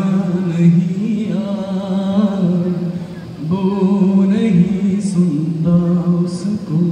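A man singing solo into a microphone over loudspeakers, holding long notes that waver and bend in pitch, with a short break for breath about three seconds in.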